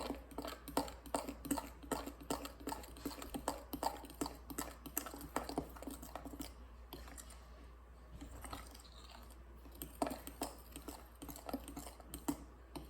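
Fork whisking pancake batter in a cereal bowl, with rapid irregular clicking taps of the fork against the bowl. The stirring slackens about halfway and picks up again briefly near the end.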